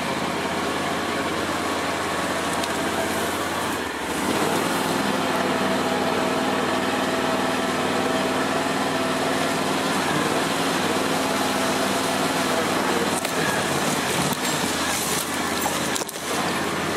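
Max IV 6x6 amphibious ATV's engine running steadily as the machine crawls through swamp mud. Its note picks up about four seconds in and settles back down later on.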